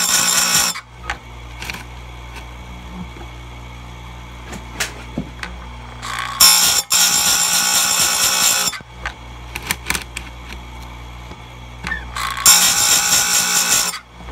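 Bench-mounted chainsaw chain grinder: its motor hums steadily while the spinning wheel is lowered onto a cutter three times, each grind a harsh hissing rasp lasting a second or two: at the start, about halfway, and near the end. Light clicks and knocks come between the grinds as the chain is handled and moved on to the next cutter.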